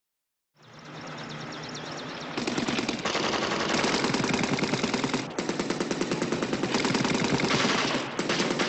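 Rapid automatic rifle fire in long bursts with brief breaks. It starts about half a second in, quieter at first, and gets much louder about two and a half seconds in.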